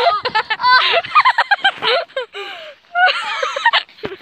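Boys' excited shouting and yelping with no clear words, the voices swooping up and down in pitch, with a brief lull about two and a half seconds in.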